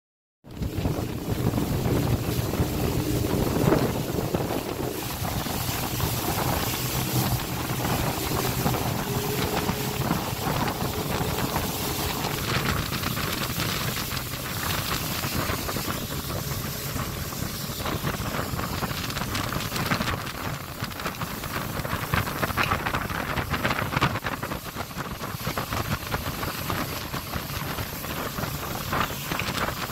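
Open motorboat running at speed on a river: a steady engine hum under heavy wind buffeting the microphone and water rushing past the hull. It cuts in abruptly about half a second in.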